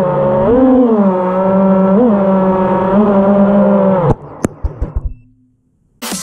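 FPV freestyle quadcopter's motors whining, the pitch swelling and dipping with the throttle, then holding steady before cutting off suddenly about four seconds in. A few knocks follow.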